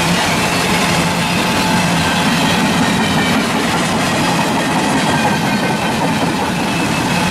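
Double-stack intermodal train's loaded well cars rolling past, a loud steady rush of wheel and rail noise mixed with the hiss of a torrential downpour.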